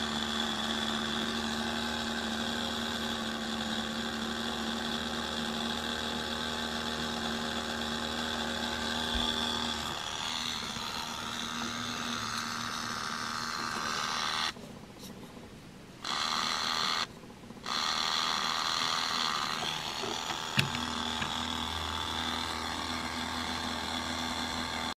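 Small electric motor of a 1990 Hallmark Children's Express light-and-motion ornament whirring steadily as it drives the toy train around inside the globe. The sound changes as the ornament is picked up and turned over, drops away twice for a second or so, and a sharp click comes a few seconds later.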